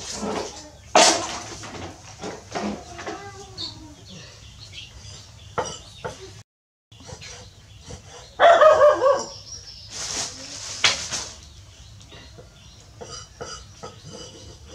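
Hand washing at a basin on the floor, then a cleaver knocking on a wooden chopping block in a few scattered chops. A loud, pitched animal call sounds a little past halfway through and is the loudest thing heard.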